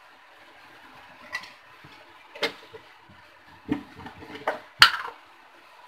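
Metal cookware knocking and clinking on the stove as a pan and the oil bottle are handled: about five sharp knocks, the loudest near the end, over a faint steady hiss.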